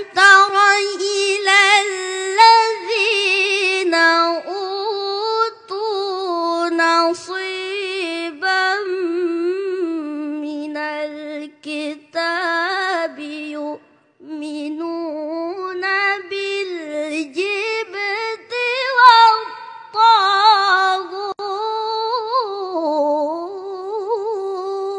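A boy's high voice reciting the Quran in the melodic tilawah style: long, ornamented phrases with a wavering, sliding pitch, broken by a few short breath pauses.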